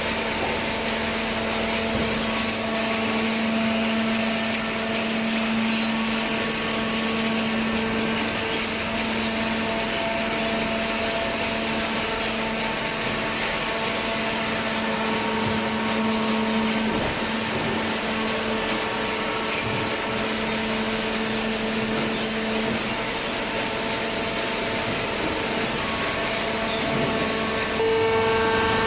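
A cardboard baler's motor running with a steady, even hum, growing louder near the end.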